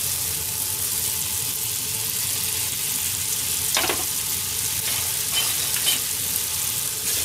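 Spaghetti and meat sauce sizzling in a hot frying pan on a gas hob, a steady hiss, with a short knock about four seconds in.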